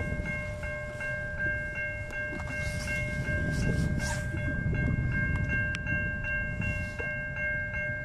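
Railroad crossing warning bell ringing in quick, even repeats as the crossing signals flash, over a low rumble of wind on the microphone.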